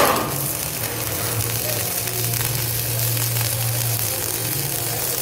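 Self-shielded flux-core welding arc, Lincoln NR-305 5/64-inch wire at 36 volts, struck with a sharp crack and then sizzling and crackling steadily as the wire burns in, over a steady low hum.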